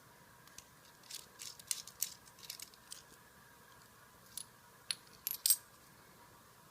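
Handling noise: an irregular scatter of light clicks and small clinks, loudest in a quick cluster near the end.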